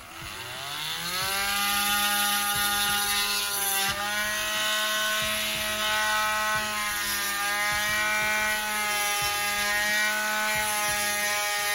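Handheld rotary tool spinning up to a steady high whine and running as it shaves plastic off a toy's ball peg, its pitch dipping slightly a couple of times as it bites.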